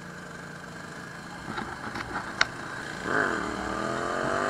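KTM 525 EXC single-cylinder four-stroke dirt-bike engine ticking over at low revs through a roundabout, then, about three seconds in, revving up and accelerating with its pitch climbing steadily. A few sharp clicks come just before the engine picks up.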